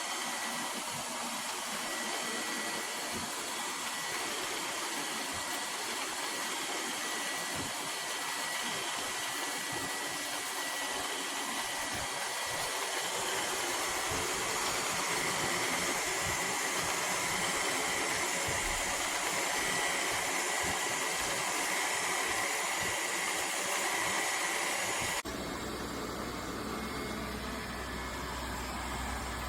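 Robot vacuum cleaner's suction motor running steadily: an even, airy hiss with a faint high whine, changing abruptly about 25 seconds in.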